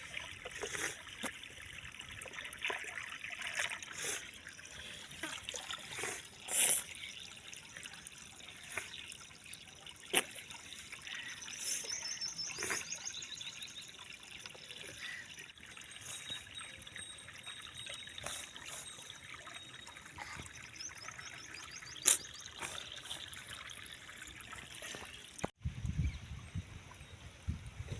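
Shallow stream water trickling over stones, with a few sharp clicks. Near the end it breaks off suddenly and a low rumble takes over.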